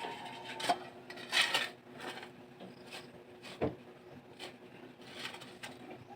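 Scraping and scattered clicks and knocks of hand work on a building site, with a rasping scrape a little over a second in and a sharp knock just past the middle, over a faint steady hum.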